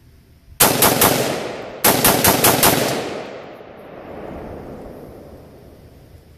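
Palmetto State Armory AR-15 rifle fired in two rapid semi-automatic strings, about four shots and then about six, each crack coming roughly a fifth of a second apart. The shots trail off in a long rolling echo.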